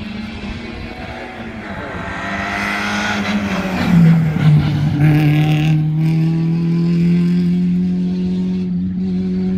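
Small hatchback rally car, a Zastava Yugo, approaching under hard throttle and passing close by about four seconds in. The engine's pitch drops as it goes past, then holds steady at high revs as the car pulls away up the stage.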